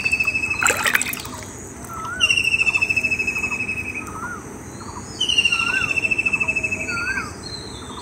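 A bird repeats a trilled call: pulsing notes about two seconds long, dropping slightly in pitch, one about every three seconds. Softer chirps sound between them. About a second in there is a short splash of muddy water as the eel is handled.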